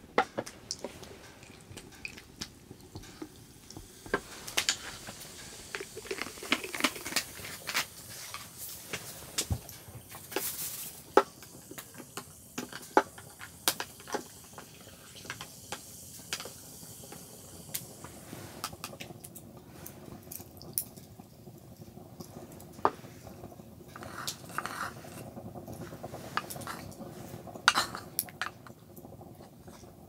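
Ice and a metal bar spoon clinking inside a glass as a cocktail is stirred, with many short clicks and taps. Later comes the lighter clicking of a spoon as oysters are set onto lemon slices on a wooden board.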